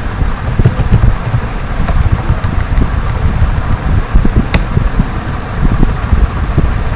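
Loud, uneven low rumbling background noise, with a few faint clicks of computer keys as text is typed.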